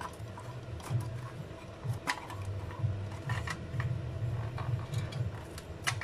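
Scattered clicks and light knocks as the wire plugs and sheet-metal housing of a refrigerator's inverter control board are handled, a few separate clicks spread out with the sharpest near the end.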